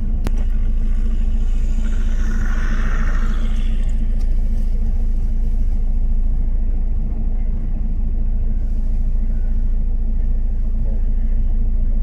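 Car engine idling, heard from inside the cabin: a steady low rumble with a constant hum.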